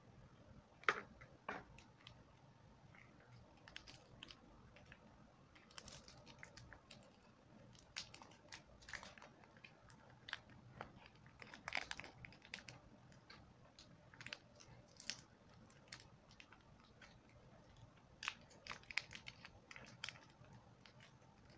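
Faint, irregular crinkling and crackling of a plastic sachet of M-Seal epoxy putty being handled and torn open by hand. The sharpest crackles come about a second in and again around the middle.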